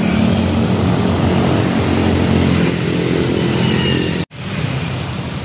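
Road traffic with motorcycles and cars passing, a steady dense engine drone. It breaks off abruptly about four seconds in and comes back quieter.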